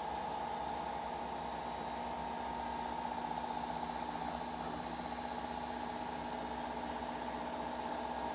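Steady mechanical hum, unchanging throughout.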